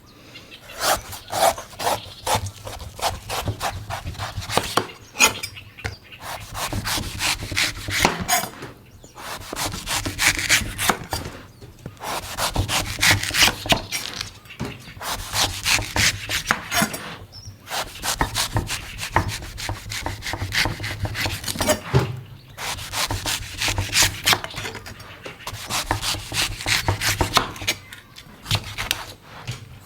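Knife cutting and scraping at a coconut in rapid repeated strokes, with short pauses every few seconds.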